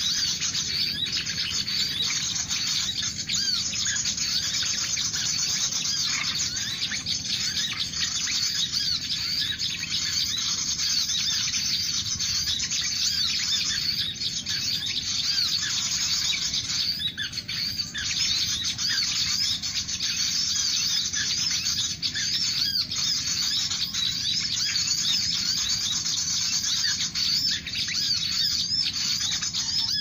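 Many small birds chirping and twittering at once in a continuous dense chorus of short high calls.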